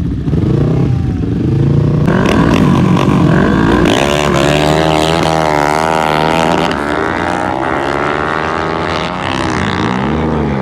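Drag-racing motorcycles running hard at high revs, the engine pitch wavering up and down. It grows louder and busier about two seconds in, and there is a rise-and-fall rev near the end.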